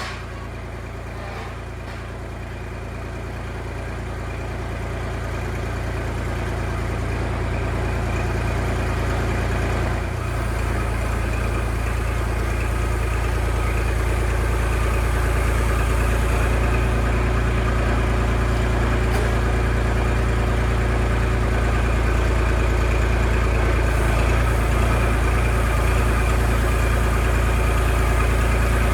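An engine idling steadily, growing gradually louder over the first half, with a brief dip about ten seconds in.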